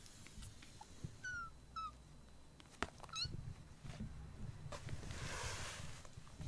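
Kittens play-fighting: three short, high mewing squeaks about one, two and three seconds in, over scuffling and a sharp knock, with a breathy rush of noise a little after five seconds.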